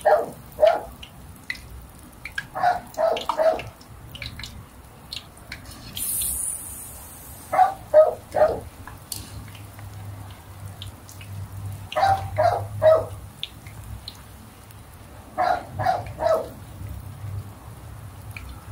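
A dog barking in short bursts of two to four barks every few seconds, over the faint sizzle of wrappers frying in hot oil in a wok.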